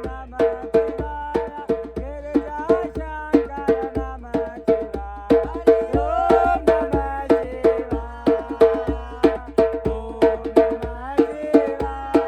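Tabla drumming: quick, steady strokes on the tuned treble drum ringing at one pitch, with deep strokes and pitch bends from the bass drum.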